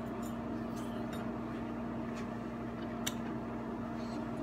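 Quiet kitchen sound: a steady low hum, with a few faint crackles from the sautéed vegetables in the skillet on low heat.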